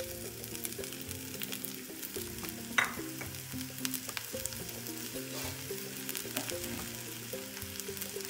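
Freshly added chopped red onions sizzling and crackling in hot oil in a small wok, with one louder crack about three seconds in.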